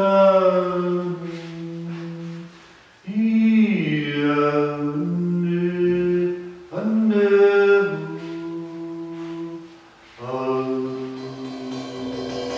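Wordless vocal toning: a man singing long, held vowel tones with slow pitch glides, in four phrases separated by short pauses for breath.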